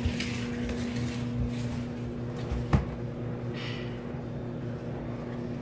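Clothes dryer running with a steady low electric hum, with a single sharp click about halfway through.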